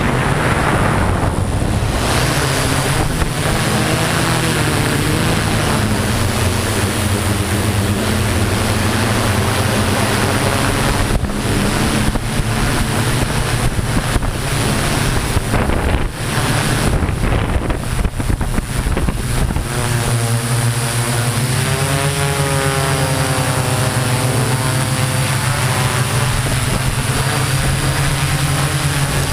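Multirotor drone's electric motors and propellers running in flight, with wind noise on the microphone. From about twenty seconds in, the motor pitch wavers up and down as the drone manoeuvres.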